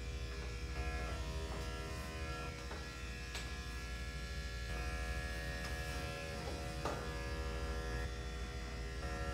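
Electric dog-grooming clippers running with a steady buzz while shaving a matted Yorkshire terrier puppy's coat.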